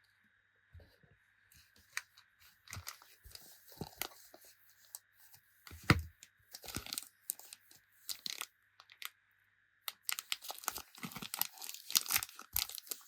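Panini Adrenalyn XL card packet wrappers being torn open and crinkled by hand: irregular crackling in spells, with the loudest crack about six seconds in.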